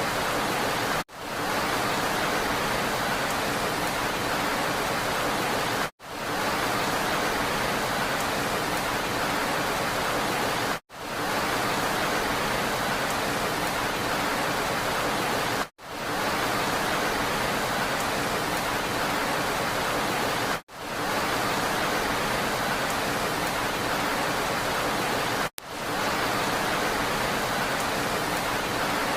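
Steady rain hiss. About every five seconds the sound cuts out for an instant and swells back in, six times in all.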